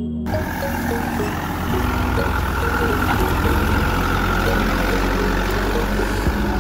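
Truck engine idling steadily, a constant low rumble.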